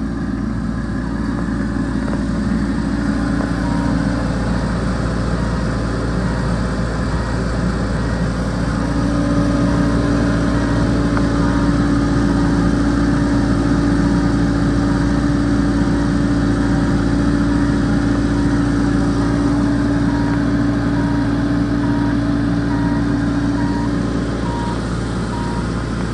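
Skid steer loader's diesel engine running steadily, its pitch and level climbing about nine seconds in as it works harder and easing near the end, with a faint evenly repeating beep over it.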